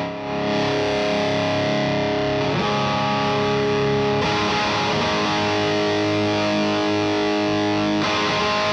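Overdriven electric guitar, a Gibson Les Paul Tribute with P90 pickups played through an Acorn Amplifiers AFKK Klon-style overdrive pedal into an 18-watt Neutron amp. It strums a few long, ringing chords, changing chord every couple of seconds.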